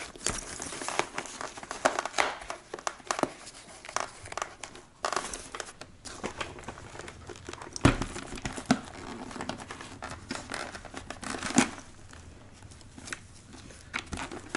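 Hands rustling and rubbing against the fabric liner and foam padding inside a Ski-Doo BV2S snowmobile helmet, with irregular crinkling and scraping. A few sharper knocks stand out, the loudest about eight seconds in.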